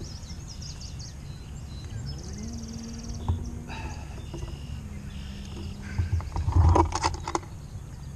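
Birds chirping, with one rapid trill about three seconds in, over a faint steady low hum. A loud cluster of knocks and scuffling comes about six to seven seconds in.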